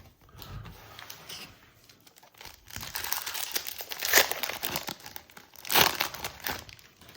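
Foil wrapper of a Panini Prizm trading-card pack being crinkled and torn open, with the two sharpest rips about four seconds in and again near six seconds.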